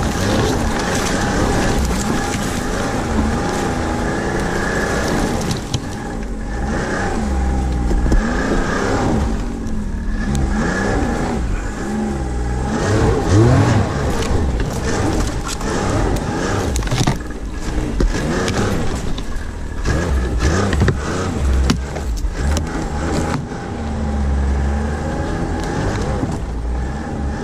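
Ski-Doo Skandic 900 ACE snowmobile's three-cylinder four-stroke engine running under load, its pitch rising and falling as the throttle is worked, with a steady higher whine alongside. Branches scrape and snap against the machine, as sharp clicks scattered mostly through the second half.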